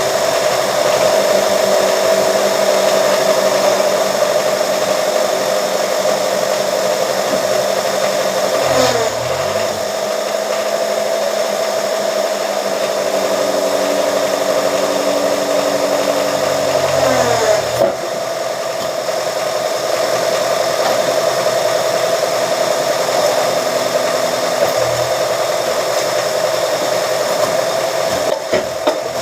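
Motor of a scrap-iron straightening press running steadily, its pitch dropping briefly about nine seconds in and again around seventeen seconds as the load changes. A couple of short knocks near the end.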